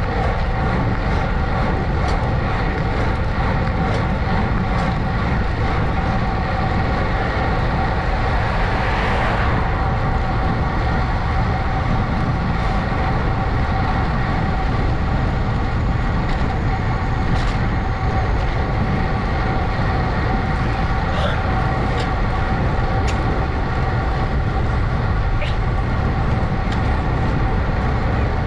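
Steady wind and road noise of a bicycle ride on a GoPro, with a constant hum, a few faint clicks, and a brief louder swell about nine seconds in.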